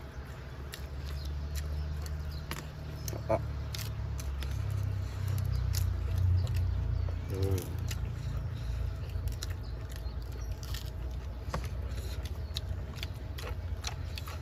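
People eating with their hands: scattered sharp crunches and clicks of chewing raw vegetables and food, over a steady low rumble.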